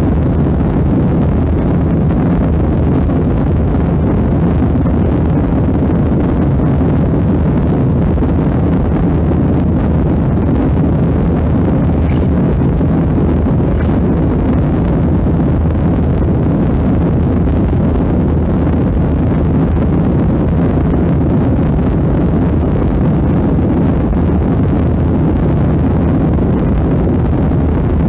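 Boeing 737-800 cabin noise during the climb after takeoff: the CFM56-7B engines and the rushing airflow give a steady, loud, low rumble heard from a window seat.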